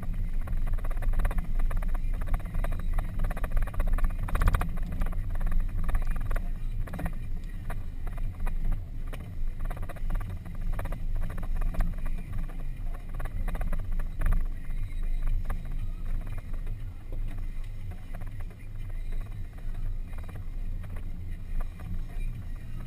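Off-road vehicle driving slowly over a rough dirt and rock track, heard from inside the cabin: a steady low engine drone with frequent knocks and rattles from the bumpy ground.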